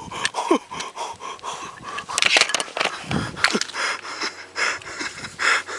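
A hiker breathing hard and panting while scrambling down a steep slope, with irregular scuffs and clicks of footing and handholds.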